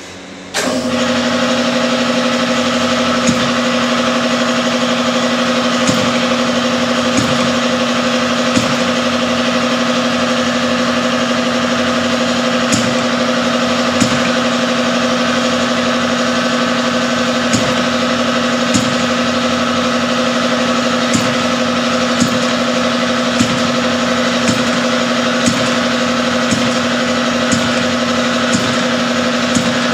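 An engine comes on abruptly about half a second in and runs at a steady idle, with short sharp ticks at uneven intervals of about a second or so.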